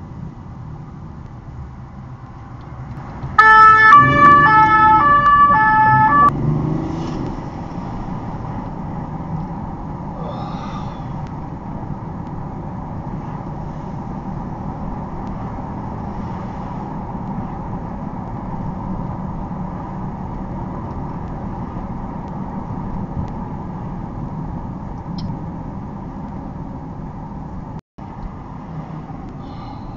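Police siren sounding close by in short alternating notes for about three seconds, a few seconds in, over the steady engine and road noise of a car driving at speed.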